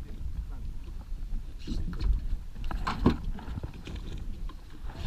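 Low rumble of wind and water along the side of a fishing boat at sea, with a few light knocks from on board.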